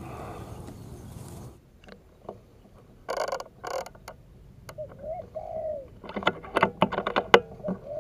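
A spotted dove cooing, one short coo about five seconds in and another starting at the very end, among several sharp clicks and rustles. A steady noise cuts off about a second and a half in.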